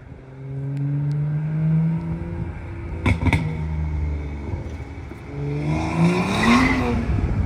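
BMW 535 F10 with full bolt-on modifications on E20 fuel, heard from outside: the engine drones steadily, gives two sharp cracks about three seconds in, then accelerates, its pitch rising and then falling, loudest near the end.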